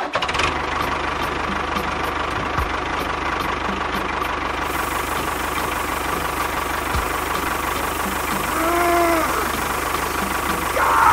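The miniature tractor's engine-like motor sound, running steadily. A short rising-then-falling tone sounds near nine seconds.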